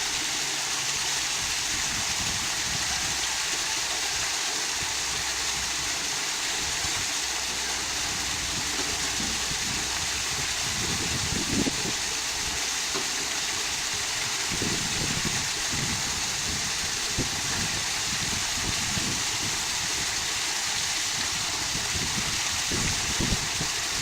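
Water pouring steadily from a pool waterfall spillway into the pool: an even rushing hiss, with a few low rumbling bumps now and then.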